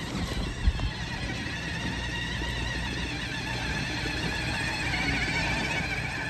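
Electric drive motors of a ride-on toy truck whining steadily as it drives, their pitch wavering, with a single knock about a second in.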